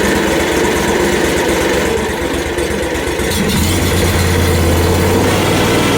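Gasoline engine of a portable bandsaw mill running steadily; a little past halfway a strong deep hum comes in and holds for a second or two.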